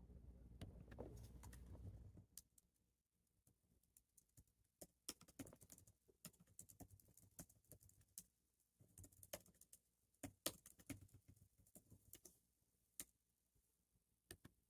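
Faint, irregular clicks and taps, like light handling or typing, after a low hum stops about two seconds in.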